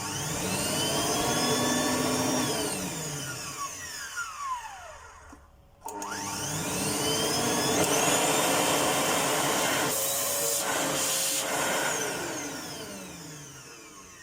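Samsung vacuum cleaner motor, just fitted with new bearings, starting twice in test runs. Each time it spins up with a rising whine, runs, and winds down with a falling whine. It runs fairly well now, after a vibration fault traced to a factory defect.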